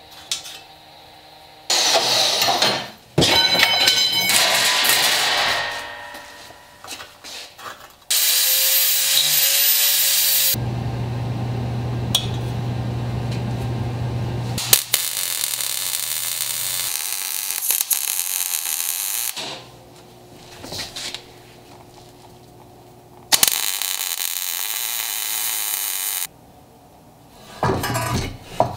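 Power tools working steel in several separate runs of a few seconds each, with short pauses between; one run carries a steady high whine.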